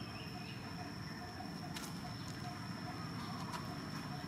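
Steady outdoor background noise: a low rumble with a constant thin high-pitched tone, and a couple of faint clicks about two and three and a half seconds in.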